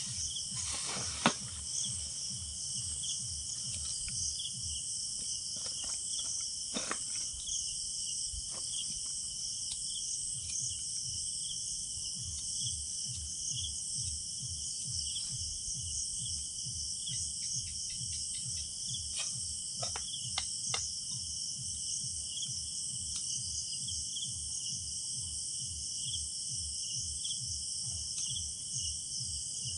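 Night chorus of crickets and other insects, a steady high-pitched trill. Underneath runs a low, even thumping beat of distant loudspeaker music. A few sharp clicks come through, the loudest about a second in.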